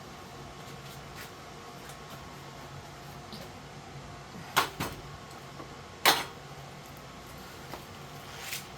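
Three sharp knocks as the vent parts are handled: two close together about four and a half seconds in, then a louder one about a second and a half later, over a steady low hum.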